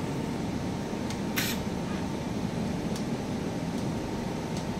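Steady hum of a room air-conditioning unit, with a few faint clicks and a brief hiss about a second and a half in.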